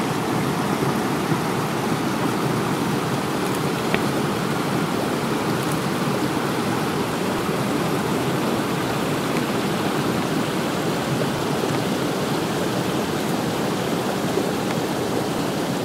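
A steady, even rushing noise that does not change in level.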